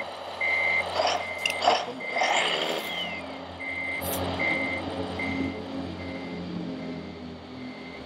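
Electronic reversing beeper of a radio-controlled Mercedes truck's sound module, beeping steadily at one pitch about once every 0.7 seconds and fading near the end: the model is backing up. A few sharp clicks and knocks in the first couple of seconds and once about four seconds in.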